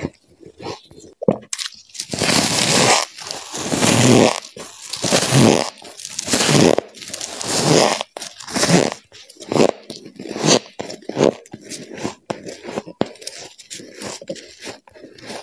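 Close-miked biting and chewing of freezer frost. A few light crackles, then loud, dense crunches as chunks are bitten off, and then softer, quicker crackles as the mouthful is chewed.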